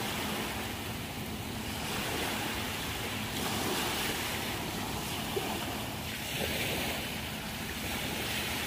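Small Gulf of Mexico waves breaking at the shoreline and washing up over the sand: a steady rushing surf that swells and eases as each wave comes in.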